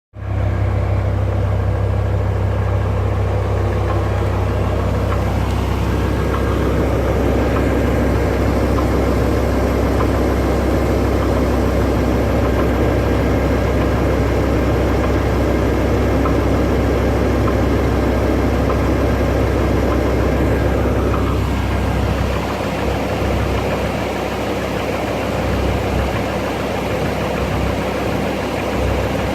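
BMW S85 V10 engine of a 2006 M5 E60 running warm, with a slow knocking from the lower front of the engine. The owner suspects the VANOS high-pressure oil pump.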